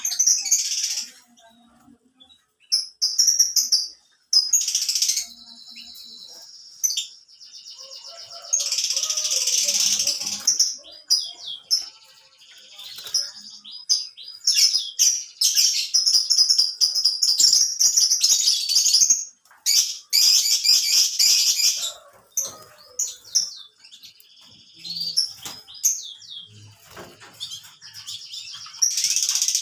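Domestic canary song: long phrases of rapid trills and chirps, coming in bursts with short pauses between them.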